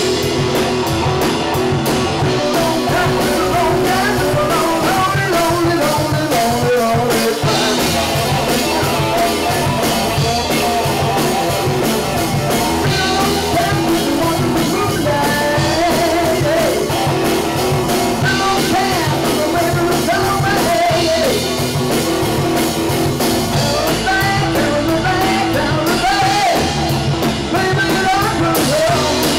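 Live rock band playing loud: electric guitar, electric bass and drum kit, with the guitarist singing lead into the microphone.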